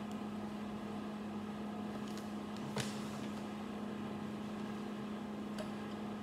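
Small plastic building bricks clicking as they are handled, one sharp click about three seconds in and a fainter one near the end, over a steady low electrical hum.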